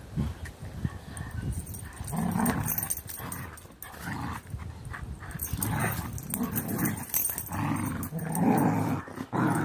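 Border collies play-growling while they tug on a disc in a game of tug of war. The low growls come in repeated waves from about two seconds in.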